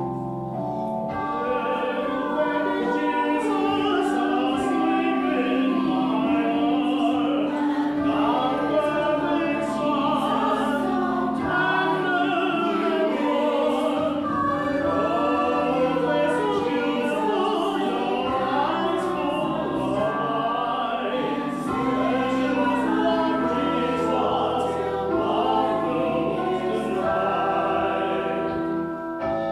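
A choir singing with instrumental accompaniment; the voices come in about a second in over sustained held notes.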